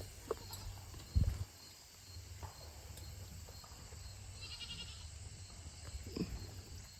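Nigerian Dwarf goat bucks making short, low vocal sounds, with one heavier low thud about a second in.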